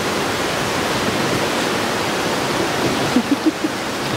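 Steady rushing of water in a canyon river, the continuous noise of a waterfall or rapids heard from a boat on the water. A few short pitched blips come about three seconds in.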